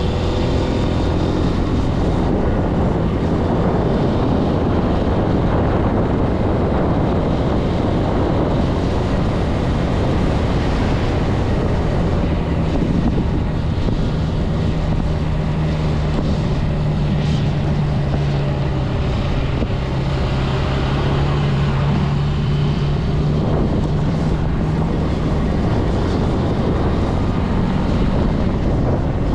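Zontes C125 motorcycle's single-cylinder 125 cc engine running at a steady cruise, with wind rushing over the microphone. The engine note drops a little lower about halfway through, then holds.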